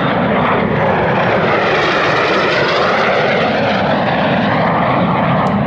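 Aero L-39 Albatros jet trainers flying past, a loud, steady engine rush whose tone sweeps down and back up about midway as the aircraft pass.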